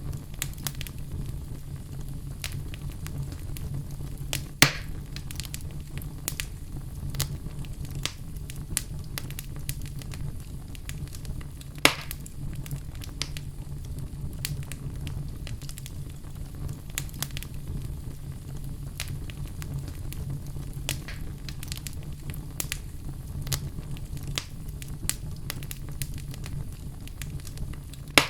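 Fire crackling: a steady low rumble of flames with scattered small pops, and two louder snaps about five and twelve seconds in.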